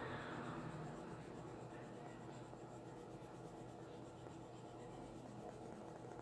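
Coloured pencil scratching faintly and steadily on drawing paper as it shades. It is a little louder in the first second.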